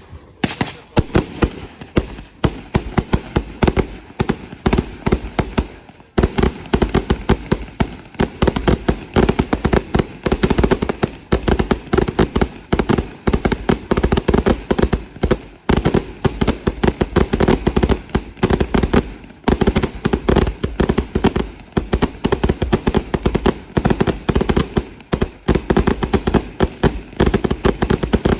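Consumer fireworks going off in a dense, continuous barrage of loud bangs and crackles, several a second, with brief lulls about six seconds in and again midway.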